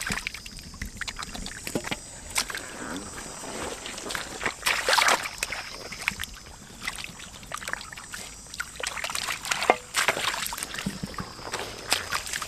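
Hands splashing and scooping through shallow muddy water while grabbing fish, in irregular splashes and sloshes, the loudest about five seconds in.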